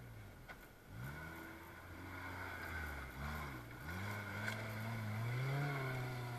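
Small off-road 4x4's engine revving up and down under load while climbing a loose dirt mound, its revs dipping a little after three seconds, then climbing to their highest and loudest about five and a half seconds in as the wheels spin and throw up dirt.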